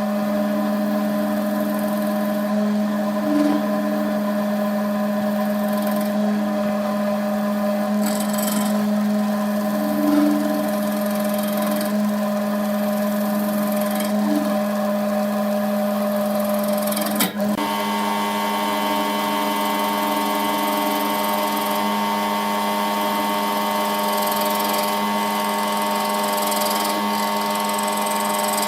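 Wood lathe running steadily with a constant motor hum. Its tone changes abruptly about 17 seconds in.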